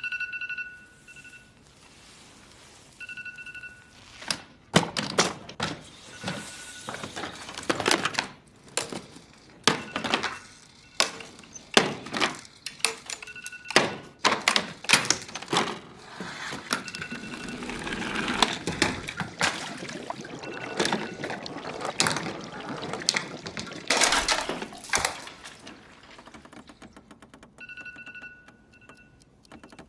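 Phone alarm sounding in short bursts of high electronic beeps, broken up by a long, irregular run of loud thumps and knocks that are the loudest sounds; the beeping is still going near the end.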